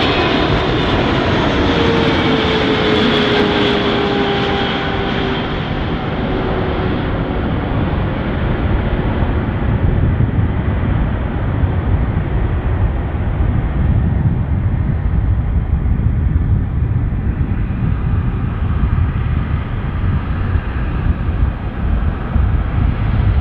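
Airplane passing close by with loud engine noise. A whine falls in pitch over the first several seconds, then the sound turns duller into a deep, steady rumble as the plane moves away.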